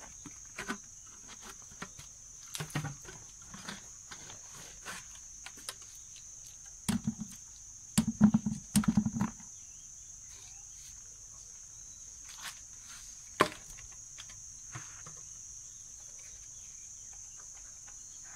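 Scattered knocks, taps and dull thumps as a plastic-pipe eel trap is shaken and knocked over a bucket to free sticky eels that will not pour out, with the loudest cluster of thumps about eight to nine seconds in and one sharp knock a few seconds later. A steady high-pitched insect chirring goes on underneath.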